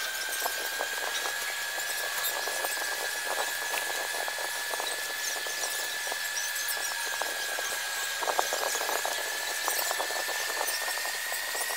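Chalk scratching on a canvas as letters are traced, in a run of small irregular scrapes and ticks. A steady high whine runs underneath and rises slightly in pitch near the end.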